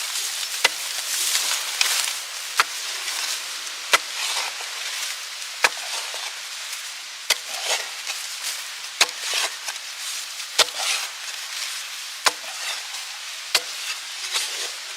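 Sharp single knocks, about one every one and a half seconds, over a steady sizzling hiss.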